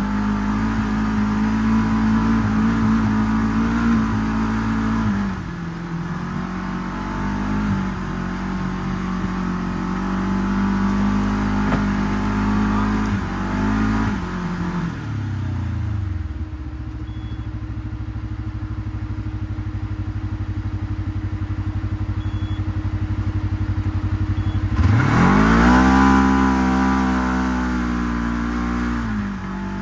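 Segway 1000 UTV engine running under throttle, its pitch falling about five seconds in and again around fourteen seconds to a steady idle. Near the end it revs up sharply once and drops back.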